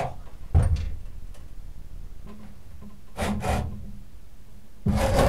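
Heavy cast-iron tower-clock frame parts being handled. A knock sounds about half a second in, followed by two spells of scraping and rubbing as the parts are shifted.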